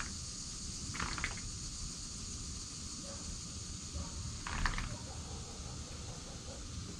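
Steady outdoor background of a high hiss over a low rumble, with two brief scratchy sounds about a second in and again just past the middle. Near the end a red fox faintly starts eating from a food bowl.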